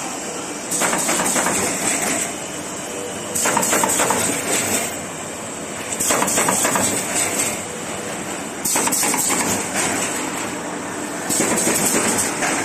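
Automatic corrugated partition assembling machine running in a steady cycle: about every two and a half seconds a burst of clatter and high hiss lasts over a second, then drops back to a lower running sound, five times over.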